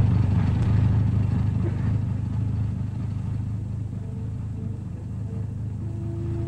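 Steady low rumble of truck engines from a motor convoy on an old film soundtrack. Faint held notes come in about four seconds in.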